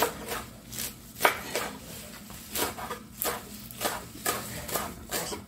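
Kitchen knife chopping mustard greens and green onions on a wooden cutting board, the blade knocking against the board at an uneven pace of about two strokes a second.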